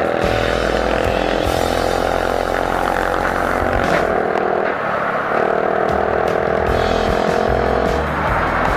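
Motorcycle engine running steadily while riding, mixed with background music.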